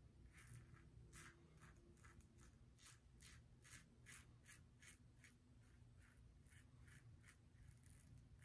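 Double-edge safety razor scraping through lathered stubble on the neck in quick, short, faint strokes, about two to three a second.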